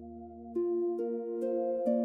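Calm ambient new-age music. A soft held low drone fades away, then about half a second in, notes with sharp starts begin, one roughly every half second, each ringing on under the next.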